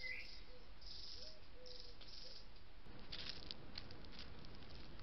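Fox cubs moving through dry leaf litter in night woodland: faint soft chirps at first, then a quick flurry of rustling, crackling clicks about three seconds in.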